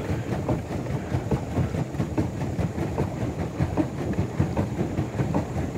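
Pedal boat being pedalled across a pond: a steady low churning with many irregular small knocks.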